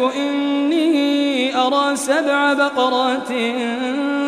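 A male reciter chanting the Quran in melodic tajweed style, drawing out long held notes that glide up and down in pitch.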